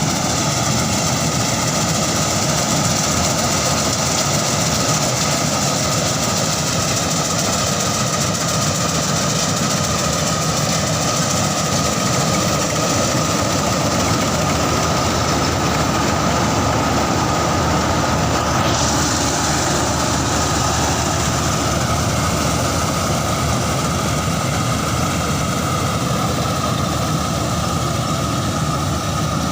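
Combine harvester running steadily while cutting rice: a continuous engine and machinery drone with several held tones.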